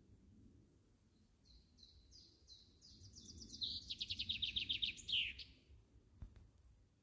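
A songbird singing one phrase: a run of high notes that speeds up into a fast trill and ends in a quick downward flourish, over a low outdoor rumble.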